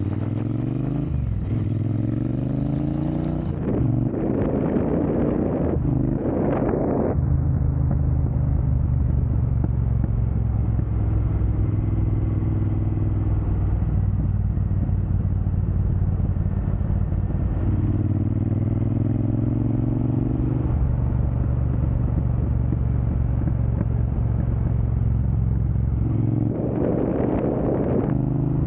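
Triumph Bonneville Speedmaster's 1200 cc parallel-twin engine running through a Jekill & Hyde electronically adjustable exhaust. The exhaust note rises in pitch several times under throttle and then drops back, with rougher, noisier stretches at about four to seven seconds in and near the end.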